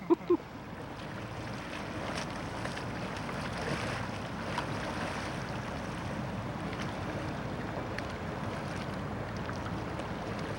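Steady wind noise on the microphone over moving water: an even rushing hiss.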